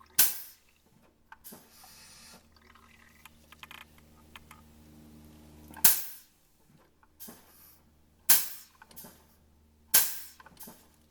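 Four short, sharp hissing bursts, each cutting in suddenly and fading within about half a second, with quieter rustling between them and a faint steady low hum.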